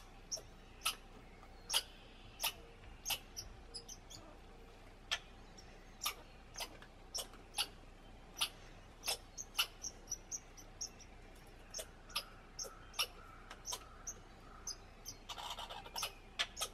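American red squirrel giving a series of sharp chuck calls at irregular spacing, about two a second, the scolding of rival squirrels squabbling over a feeder. A short burst of noise comes near the end.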